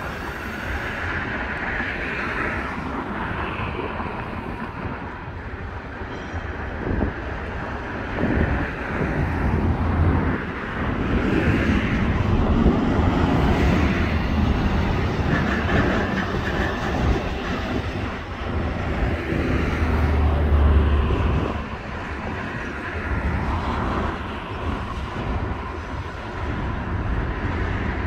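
A CSX intermodal freight train's cars rolling past on the rails: a steady, noisy rumble that swells through the middle, with heavier low rumbles about a third and three-quarters of the way through.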